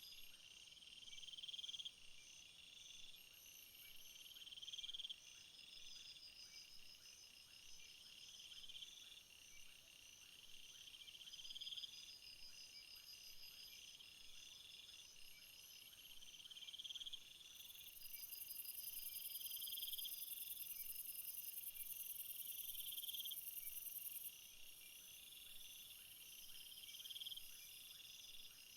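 Faint chorus of field insects chirping, several overlapping high-pitched pulsing songs, one swelling phrase repeating about every two seconds. A higher, brighter buzz joins for several seconds past the middle, then drops back.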